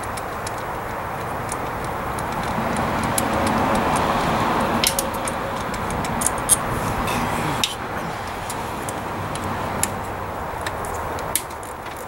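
Scattered light metallic clicks and ticks from a ratchet, socket and ignition parts as coils and spark plugs are worked out of a Honda 3.5 V6. They sound over a steady rushing noise that swells in the middle and then eases.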